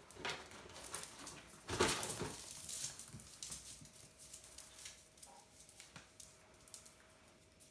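Puppies play-fighting: scuffling, with paws and claws pattering on a cork floor, loudest in a brief scrum about two seconds in.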